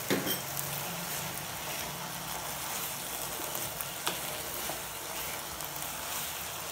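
Carrot halwa (grated carrot cooked down in milk, sugar and ghee) sizzling gently in a pan while a wooden spatula stirs and scrapes it through, with a couple of light knocks.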